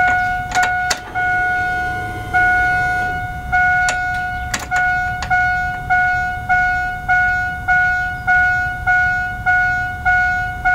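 Cadillac Escalade's dashboard warning chime with the ignition key switched on and the engine not running. It sounds as a nearly continuous tone for the first four seconds or so, then as a regular ding repeating a little under twice a second, with a few sharp clicks early on and near the middle.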